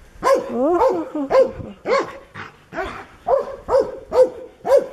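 Seven-week-old puppies barking and yipping at play: a run of short, high barks, roughly two a second.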